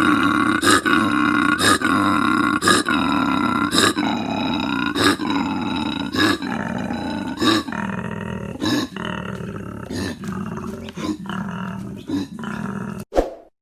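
Koala bellowing: a long call broken into regular pulses about once a second, which come quicker and grow weaker toward the end before it stops suddenly.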